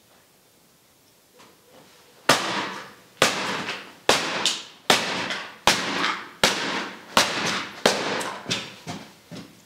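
Aluminium drink cans crushed one after another under a rubber boot stomping on a concrete floor: eight sharp crunching stomps a little under a second apart, starting about two seconds in, with a few smaller crunches near the end.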